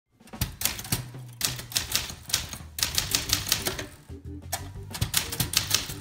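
Manual typewriter being typed on in quick bursts of sharp key strikes, over background music with a low bass line.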